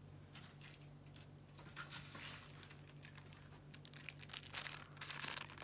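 Plastic jewellery packaging crinkling and rustling in short, irregular bursts as it is handled, loudest near the end.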